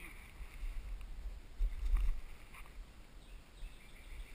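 Low, uneven rumble of wind and handling noise on the camera microphone, strongest about two seconds in, with faint high chirping near the start.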